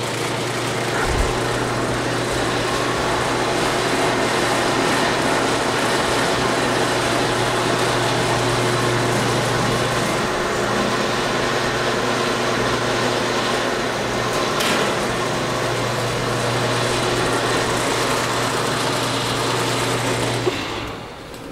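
Woodmaster 5075 drum sander running empty, its 7.5 hp single-phase motor spinning the 50-inch sanding drum while the conveyor feed turns: a steady electric-motor hum with a whirring rush over it. The sound drops away near the end.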